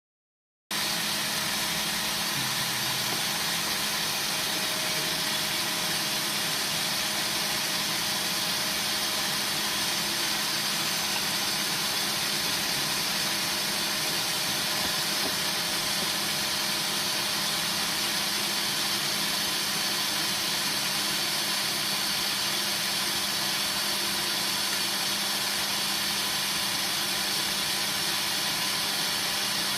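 Steady machine noise: an even hiss with a low, unchanging hum.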